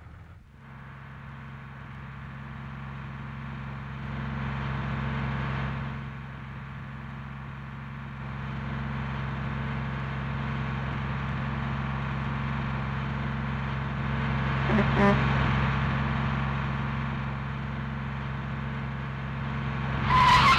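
Bus engine running steadily as the bus drives: a low, even hum with road noise that slowly grows louder. A brief loud sound cuts in near the end.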